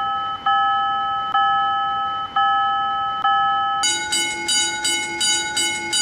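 Japanese railroad crossing warning bell ringing, first a slow ding about once a second, then about four seconds in switching to a faster ring of a different pitch, about three strikes a second.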